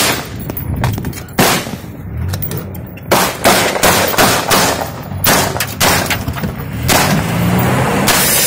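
Pistol shots fired from inside a car through its window: a string of single shots at irregular intervals, about one to two seconds apart.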